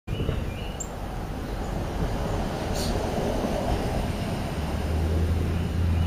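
Steady low rumble, with a deeper hum coming in after about four and a half seconds and a few faint high chirps near the start.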